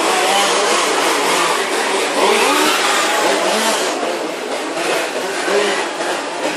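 Small two-stroke petrol engines of 1:5-scale radio-controlled racing cars running together, their pitch rising and falling constantly as they rev.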